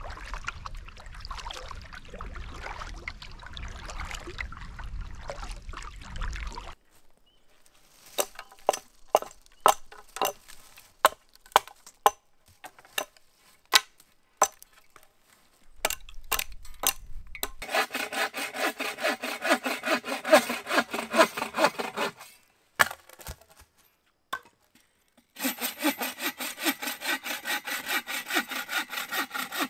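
Bow saw cutting through dead wood in two runs of steady back-and-forth strokes in the second half. These follow a low rumbling noise over the first several seconds, then scattered sharp knocks.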